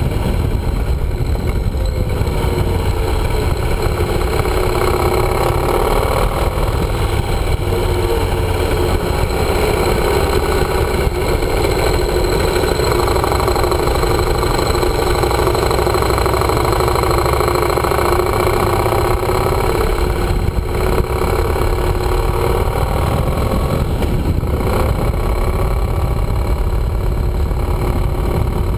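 Yamaha motorcycle engine running steadily as the bike rides along, heard through a mounted action camera with a constant low rush of wind and road noise.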